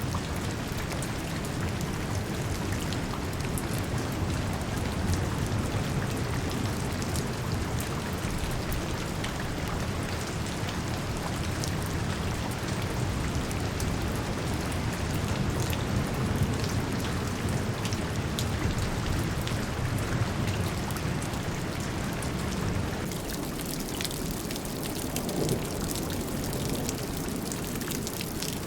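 Steady rain, with many separate drops tapping on surfaces over a low rumble. About 23 seconds in, the sound changes: the low rumble drops back and the hiss grows brighter.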